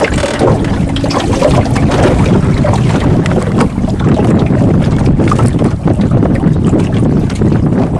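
Wind buffeting the microphone over choppy open water: a loud, steady rumble broken by irregular knocks and splashes of water against a small boat.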